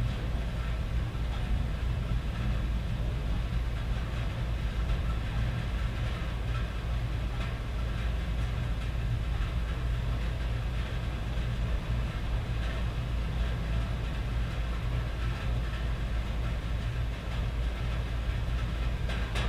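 Steady rain falling on a tin roof, a fine patter over a deep continuous rumble, with no single thunderclap standing out.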